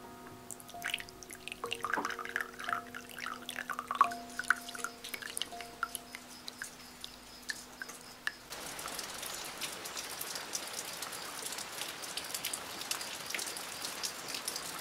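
Scattered drips and light ticks over a few held musical notes, then about eight seconds in a sudden change to steady rain.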